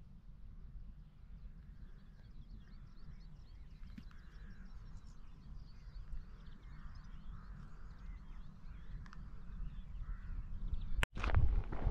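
Birds calling and singing over a low wind rumble on the microphone. Near the end the sound cuts off abruptly, and loud footsteps start.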